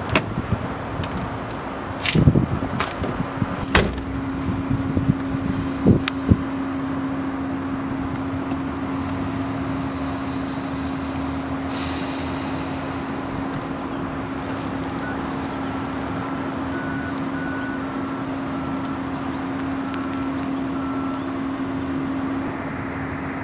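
A car door is opened, someone climbs into the seat, and the door shuts, giving a handful of clicks and thumps in the first six seconds. After that comes a steady low hum.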